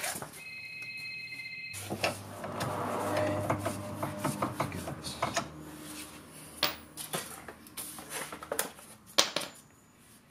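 Metal tools and hardware clinking and knocking as they are handled, with scattered sharp clicks, the loudest near the end. A brief high whine and then a low hum for a few seconds come from an unidentified machine.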